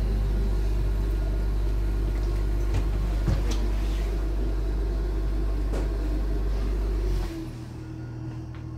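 Light-rail train car running, heard from inside: a steady low rumble with a few sharp clicks. About seven seconds in it falls suddenly to a quieter, lower hum.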